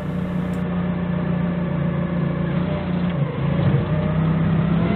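Doosan 4.5-ton forklift's engine running steadily at low speed as the forklift creeps forward to the load. The engine note dips briefly about three and a half seconds in.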